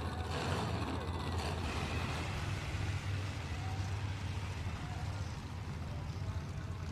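Demolition derby cars' engines running together with a steady low rumble.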